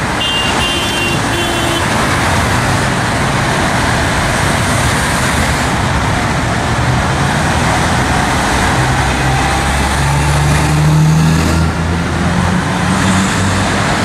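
Dense multi-lane interstate traffic passing below, a steady rush of tyres and engines. A few short high beeps sound in the first couple of seconds, and about ten seconds in the low engine drone of a heavy truck swells as it passes underneath.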